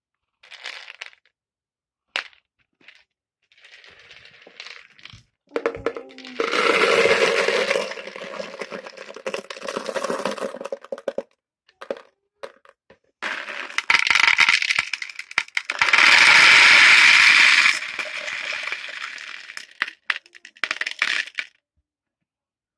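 Round toy beads pouring and rattling into a bowl and rolling around in it: scattered clicks, then two long spells of dense clatter.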